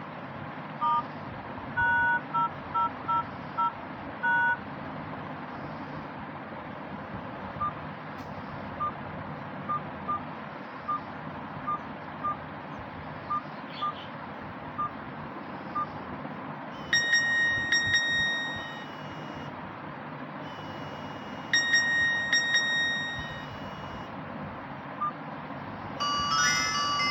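Nokia feature phone keypad tones: a quick cluster of short two-pitch beeps, then single short beeps about once a second as keys are pressed. Then two brief bell-like ringtone phrases sound, and a chiming ringtone melody starts near the end.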